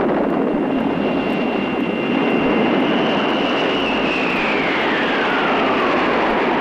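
Aircraft engines running loud, with a steady whine that, about four seconds in, begins to fall smoothly in pitch as the plane goes down before its crash.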